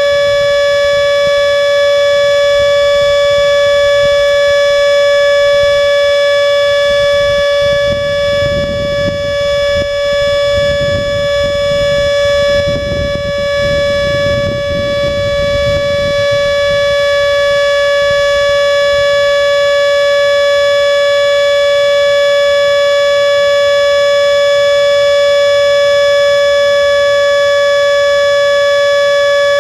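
Miniature Model 2 warning siren sounding a steady, unchanging single tone with strong overtones, held during its three-minute monthly test. A low rumbling noise sits underneath for several seconds partway through.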